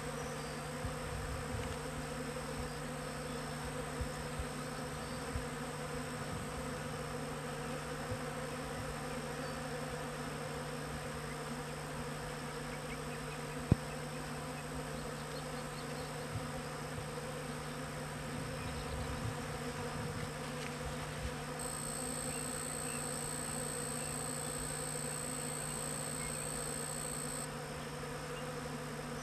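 Bees foraging on corn tassels, a steady buzzing hum of many wings. One sharp click about halfway through.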